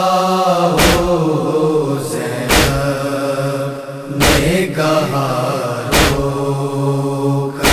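Noha lament: voices chanting long, drawn-out notes over a low steady drone, without words. A heavy beat falls about every 1.8 seconds, five times.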